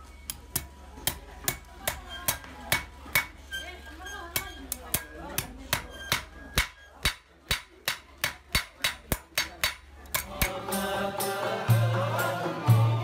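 A hand hammer striking a scrolled wrought-iron piece on a block anvil, steady blows at about two to three a second. A little after ten seconds in, the hammering stops and folk music comes in, with a deep drum beat.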